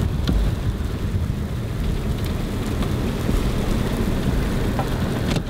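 Thunderstorm noise: steady rain and wind with a deep low rumble and a few faint ticks.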